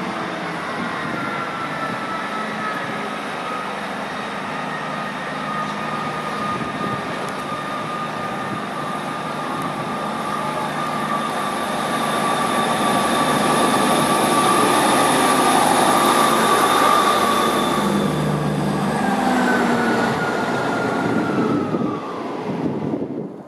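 East Midlands Trains Class 158 diesel multiple unit running past along the platform, its underfloor diesel engines rumbling under a steady high whine. It grows louder toward the middle, and the whine falls in pitch near the end before the sound cuts off suddenly.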